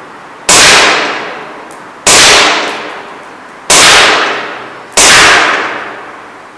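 Four shots from an ASG CZ P-09 gas blowback airsoft pistol, about a second and a half apart, each a sharp crack of gas and the slide cycling. Each shot rings out in a long echo through the empty building.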